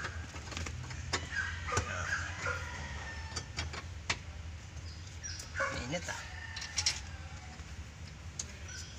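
Short yips from a dog and faint voices in the background over a low steady hum, with a few sharp clicks in between.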